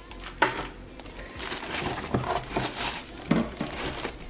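Rustling of packaging with irregular light clicks and knocks as the box of an AIO liquid CPU cooler and its parts are handled and unpacked.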